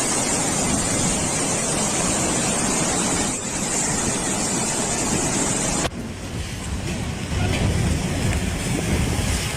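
A steady, loud rushing noise, with most of the energy high up. About six seconds in it cuts off abruptly and gives way to a lower, rumbling noise.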